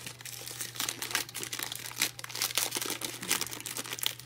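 Trading-card pack wrappers and cards being handled, making a continuous irregular crinkling and crackling.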